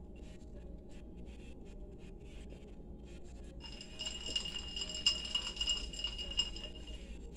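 A tall drinking glass clinking and ringing, with a run of light clinks starting about halfway in as it is lifted and drunk from.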